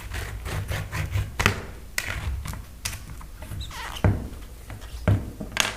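Tire levers working a bicycle tire's bead off the rim: a string of irregular clicks and scrapes with a few sharper snaps, the sharpest about four seconds in and near the end.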